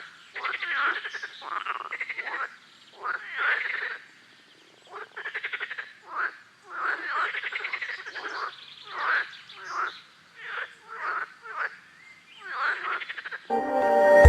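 Frogs croaking: a string of short calls, some overlapping, with brief pauses between them. Music comes in near the end.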